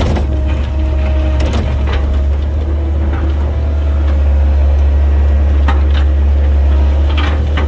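Komatsu 120 excavator's diesel engine running steadily under load with a hydraulic whine, while the bucket scrapes and cracks through limestone rock with scattered sharp knocks. The engine gets a little louder about four seconds in.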